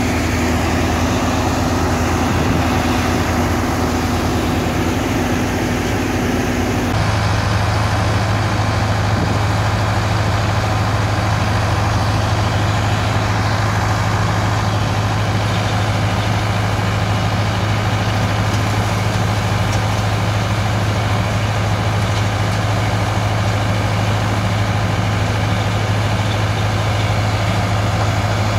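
Mobile tracked sand screening plant running: its engine and vibrating screen make a loud, steady mechanical drone with a low hum. About seven seconds in, the hum changes abruptly to a lower, stronger tone.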